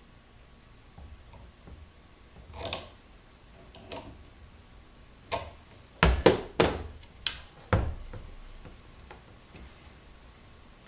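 Hand tools and metal parts clicking and knocking while the V-wheel eccentric spacers on a CNC router's Z-axis are adjusted: a few scattered light clicks and scrapes, then a quick run of sharp knocks about six to eight seconds in.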